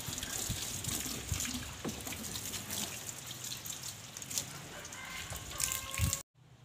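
Water from a garden hose spraying and splashing over a car's engine bay, a steady crackling spatter that cuts off suddenly about six seconds in.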